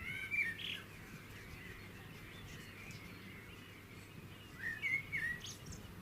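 Small bird singing: a short phrase of quick, high chirps at the start and another about three-quarters of the way through, over a steady low background.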